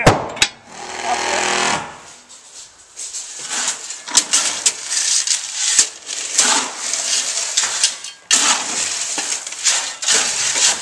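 Steel shovels scraping and scooping crushed gravel out of a tractor's loader bucket, one gritty crunching scrape after another. Before that, about the first two seconds hold a couple of sharp metal clicks from a wrench on a bolt and a steady engine hum.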